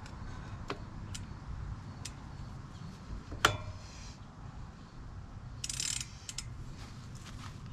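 Metal bicycle parts clicking and clinking as a BMX three-piece crankset is handled and fitted back together, with one sharp metallic clink about three and a half seconds in and a brief rattle near six seconds.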